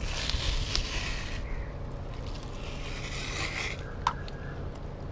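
Skin being pulled by hand off a raw tuna, tearing away from the flesh with a scraping, rasping noise in two long drawn-out stretches. There is a light knock about four seconds in.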